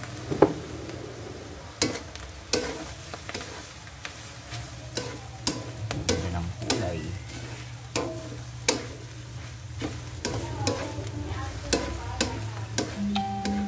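A wooden spatula stirring and scraping diced pork lung in an aluminium wok, knocking against the pan about once a second, over the sizzle of the meat frying. A steady low hum runs underneath.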